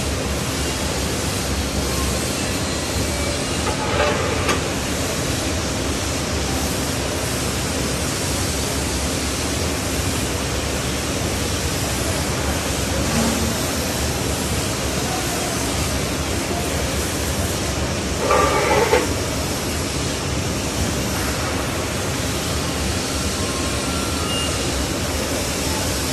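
Handheld laser welding machine running while welding stainless steel, giving a steady, even hiss. Two brief louder knocks come about 4 seconds in and again about 18 seconds in.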